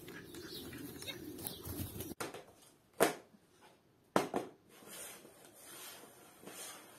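Small birds chirping outdoors for the first two seconds. Then cups knocking down onto a board: one sharp knock about three seconds in and two quick knocks about a second later.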